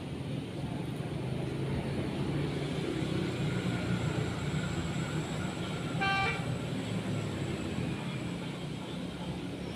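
Steady low hum of motor traffic, with one short horn toot about six seconds in.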